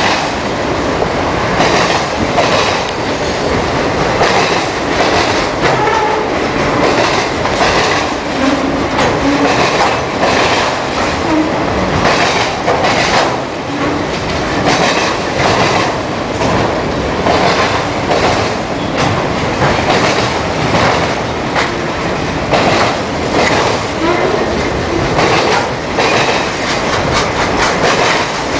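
Union Pacific freight train of autorack cars rolling past at close range: a loud, steady rumble of steel wheels on rail, broken by a constant run of clicks and clacks as the wheels pass over rail joints.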